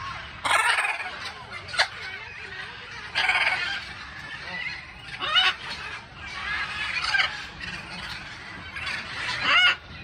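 Parrots squawking: harsh calls in short bursts every second or two, some as quick rattling runs.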